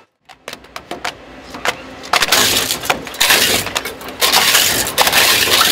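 Industrial shredder taking in DAT data tape cartridges from its conveyor. Scattered sharp clicks come first, then from about two seconds in a loud, dense crunching and cracking as the plastic tapes are torn apart.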